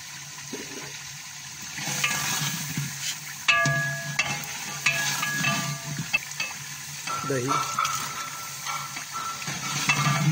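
Spice masala frying in ghee in a large aluminium cooking pot, sizzling as a long metal ladle stirs it and scrapes and clinks against the pot, louder from about two seconds in.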